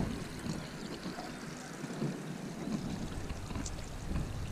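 Wind buffeting the microphone as a low rumble that drops away about a second in and comes back after nearly three seconds, over a faint trickle of running water.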